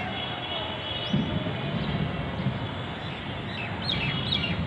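A bird gives a few short, high chirps that fall in pitch, close together near the end, over a steady rumble of outdoor noise. There is a low knock about a second in.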